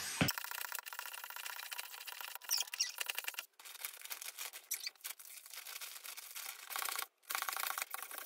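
Air being sucked out of a vacuum clothes-storage bag through its valve: a steady whistling hiss that cuts out briefly twice, about three and a half and seven seconds in.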